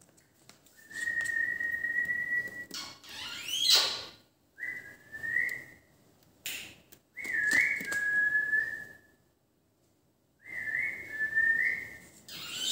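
Four short phrases of clear, level whistled notes, each note held and stepping up a little in pitch, separated by pauses. An Indian ringneck parakeet gives a loud, sharp rising squawk about four seconds in and another at the end.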